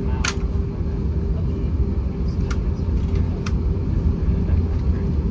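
Steady low cabin rumble of an Airbus A321-231 with its IAE V2500 engines running, with a faint steady hum over it. Three short sharp clicks sound, one just after the start and two more about two and a half and three and a half seconds in.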